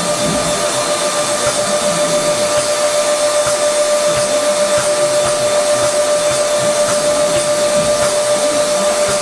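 A motor running steadily: an even hiss with a whine held at one pitch, pulsing slightly in loudness.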